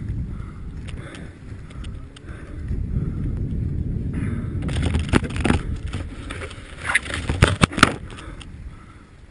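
Snowmobile sliding down a steep snow slope: a steady low rumble of snow scraping and crunching against the machine, with a cluster of sharp knocks and thuds in the second half.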